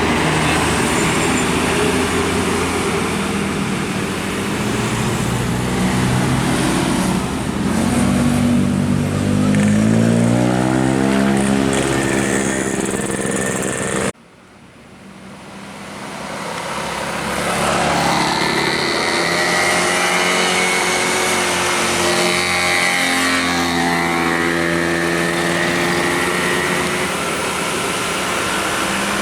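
Tour bus engine running loud and revving up, its pitch rising from about eight to twelve seconds in. The sound cuts off abruptly about fourteen seconds in, then fades back up to steady engine and road noise.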